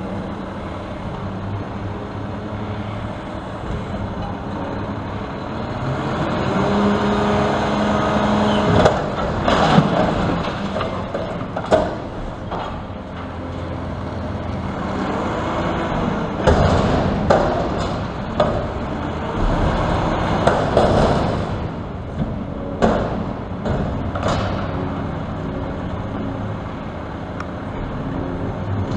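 Garbage truck working a collection stop: its diesel engine runs steadily, revs up several times as the hydraulics work, and a string of sharp bangs and clanks comes from the middle stretch.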